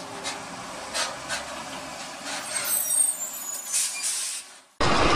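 Road traffic heard from a dash cam inside a car driving between container trucks: a steady road hiss with scattered short knocks, and a brief high squeal about two and a half to three seconds in. Near the end the sound cuts abruptly to a louder, denser noise.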